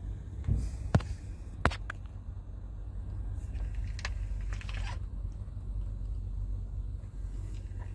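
Scania G450 tractor unit's 13-litre straight-six diesel idling with a steady low rumble. A few sharp clicks and knocks sound in the first two seconds.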